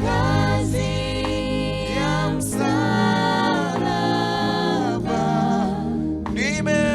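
Gospel song with a choir singing held notes over a steady instrumental backing.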